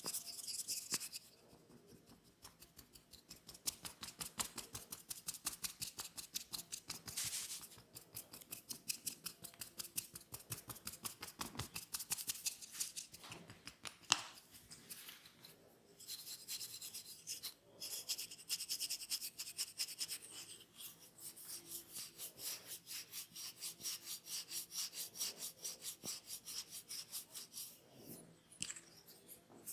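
Hands rubbing quickly and rhythmically over skin and hair during a head, neck and shoulder massage, about four to five strokes a second, in runs with short pauses between them. One sharper hit stands out about halfway through.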